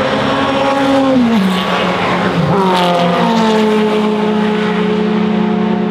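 Two 1960s race cars, an Alpine among them, pass at speed one after the other. Each engine note drops in pitch as the car goes by, the second about two and a half seconds in with a brief rush of noise. After that a steady engine note runs on as the cars carry on down the straight.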